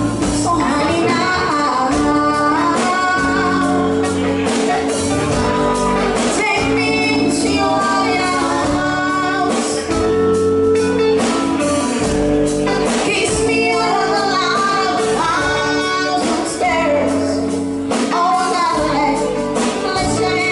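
A small live band playing: a woman singing lead over electric guitar, bass guitar and keyboard, with a steady beat.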